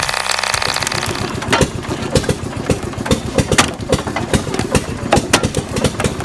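Engine-driven wood-splitting machinery. A steady, high-pitched engine note changes abruptly about a second and a half in to a lower engine running under many irregular sharp knocks.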